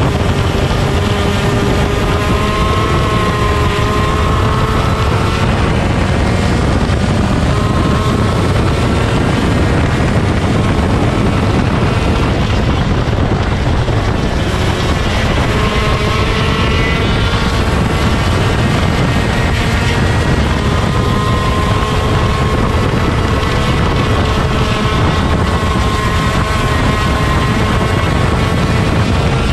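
125cc two-stroke shifter kart engine running, heard onboard with heavy wind noise on the microphone; the engine pitch rises and falls slowly.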